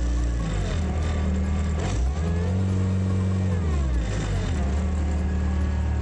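Bobcat S205 skid steer's diesel engine running and being revved with the cab hand throttle. It rises about two seconds in, holds higher briefly, then glides back down to a steady lower speed. The newly replaced accelerator cable now lets the lever control the engine speed.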